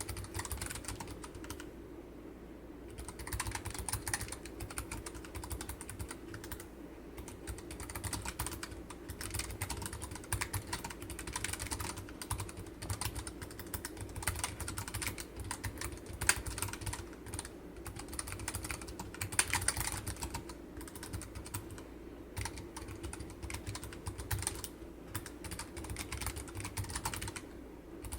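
Keychron K7 low-profile keyboard with optical Mint switches being typed on, a fast, continuous run of keystroke clicks with brief lulls, the PCB backed with masking tape.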